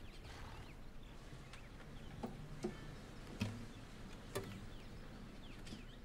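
Quiet stable ambience: faint bird chirps with a few short knocks, the loudest about halfway through.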